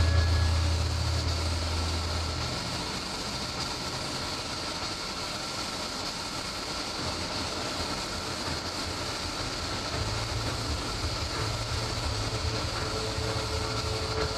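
Compressed-air spray gun hissing steadily while spraying paint onto a car body. A low machine hum underneath cuts out about two and a half seconds in and comes back about ten seconds in.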